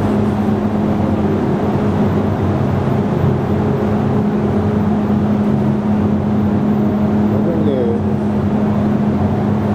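Paint spray booth's ventilation fan running steadily: an even rush of moving air over a constant low hum.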